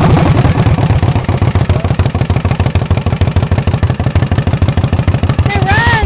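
1976 Harley-Davidson Shovelhead air-cooled V-twin engine running steadily with an even low pulse, on its first runs after a full rebuild (cammed, flowed, balanced). The recording is loud and distorted.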